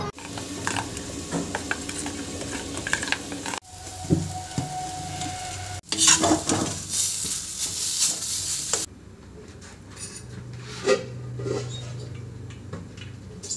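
Kitchen cooking sounds in short clips joined by abrupt cuts: food sizzling as it is stirred and scraped in a metal pan, with clinks of pots and utensils. The frying is loudest in the middle.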